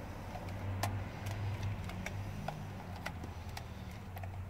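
Scattered light plastic clicks and ticks from a handheld digital multimeter and its test leads being handled and plugged in, over a steady low hum.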